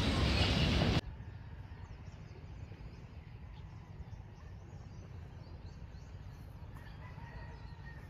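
Morning outdoor ambience of small birds chirping over a steady low rumble, with a rooster crowing faintly near the end. A loud, even noise fills the first second and cuts off suddenly.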